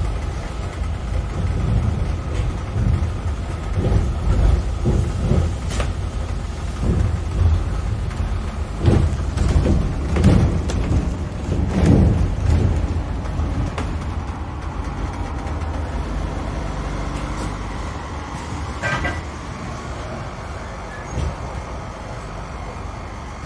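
London bus in motion heard from on board: steady engine and road rumble, with louder knocks and rattles in the first half. The rumble settles steadier and a little quieter in the second half, with a brief higher squeak about three-quarters of the way through.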